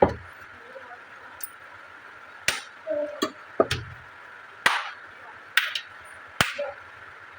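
Kitchen utensils knocking and clinking: about six sharp taps, unevenly spaced, in the second half.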